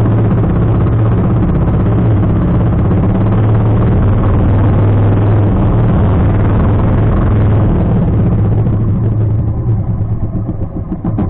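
Outrigger fishing boat's engine running steadily at cruising speed, with wind and water noise over it; about nine seconds in, the engine sound eases off and grows weaker.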